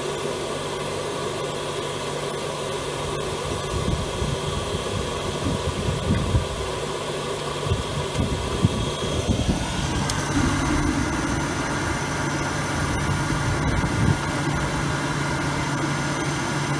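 The Grant 50/90 oil boiler's burner starting up and running with a newly fitted jet: a steady hum from the burner fan motor and oil pump. The sound changes about nine to ten seconds in.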